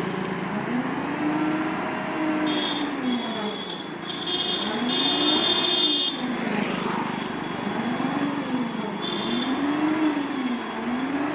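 Heavy truck diesel engine revved up and down about five times in a row. A high, thin tone sounds in stretches around the middle and again briefly later.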